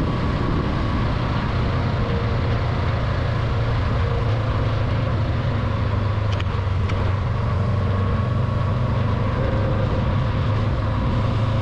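Honda CB500X parallel-twin motorcycle engine running at a steady cruise while riding, with a steady rush of wind noise.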